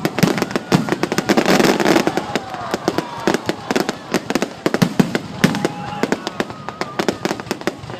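Fireworks going off in rapid succession: a dense run of sharp bangs and crackles, at its thickest about a second or two in.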